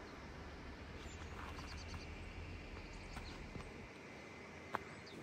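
Faint outdoor background noise with a steady low hum, a few faint high ticks or chirps, and one sharp click near the end.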